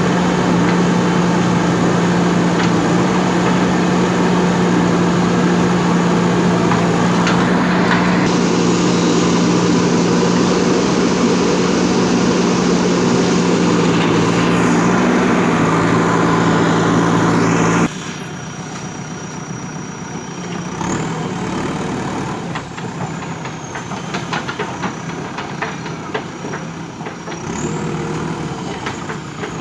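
JCB backhoe loader's diesel engine running steadily with a strong hum. About two-thirds of the way through the sound cuts abruptly to a quieter stretch, where the engine runs lower amid scattered knocks and rattles.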